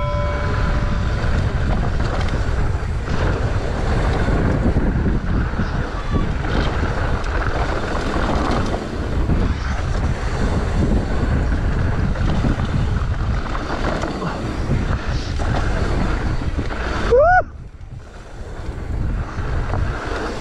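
Wind buffeting an action camera's microphone over the rolling rumble of mountain bike tyres on a dirt trail during a fast descent. Near the end a short rising whistle-like tone sounds, and then the noise drops much quieter.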